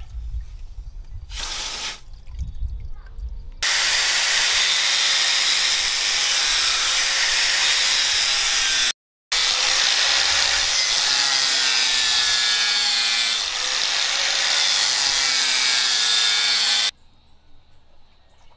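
A hot steel knife blade hissing and sloshing as it is quenched in a trough of water, then a handheld angle grinder running with its abrasive disc against the steel blade, a steady loud grind with a wavering motor tone that breaks off briefly halfway and stops near the end.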